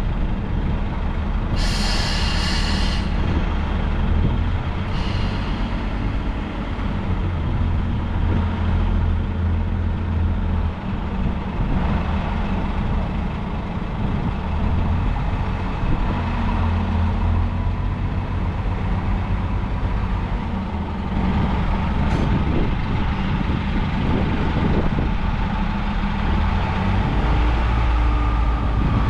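British Rail Pacer railbus diesel engine running with a steady low rumble, with a short hiss of air about two seconds in and a fainter one a few seconds later.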